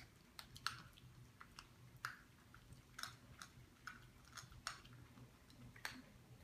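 Small dog eating, faint irregular crunching and clicking of food being chewed, one or two crunches a second.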